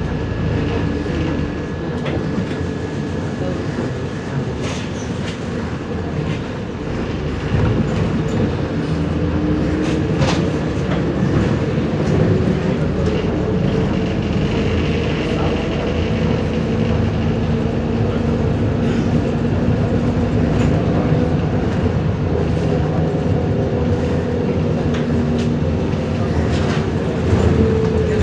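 Ride inside a MAZ 105.065 articulated diesel city bus on the move: a steady engine and road drone whose pitch slowly rises and falls, with scattered clicks and rattles from the body and fittings.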